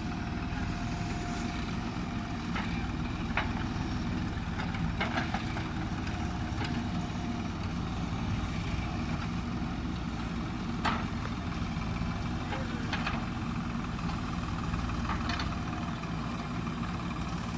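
Heavy-equipment diesel engine running steadily, with a few sharp knocks scattered through it.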